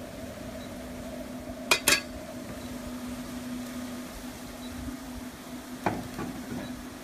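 Metal kitchenware clinking: two sharp clinks close together about two seconds in and another near the end, over a steady low hum.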